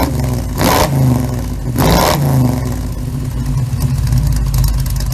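Small-block Chevy 350 V8 engine running and revved twice in quick succession, about a second apart, each rev falling back before the engine settles to a steady run.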